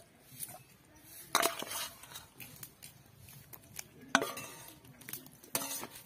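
Metal spatula knocking and scraping against a steel bowl and steel kadai as fried brinjal pieces are pushed into yogurt curry. There are several sharp metallic knocks: a clatter about a second and a half in, and the loudest knock about four seconds in, which rings briefly.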